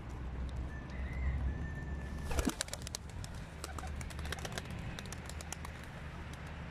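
A flock of domestic pigeons takes off about two and a half seconds in, with a flurry of wing claps and flapping that carries on in scattered beats. Just before the take-off there is a thin high whistle-like tone that drops sharply in pitch. A low steady rumble runs underneath.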